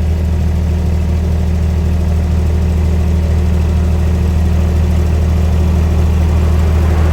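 An engine running steadily with a low, even hum that holds the same pitch throughout.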